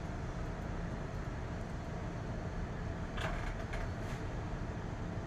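Steady low rumbling background noise, with a brief cluster of clicks about three seconds in.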